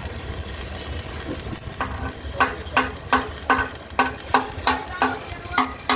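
Steady sizzling hiss, then from about two seconds in a run of evenly paced hammer blows on steel, about three a second, each with a short metallic ring.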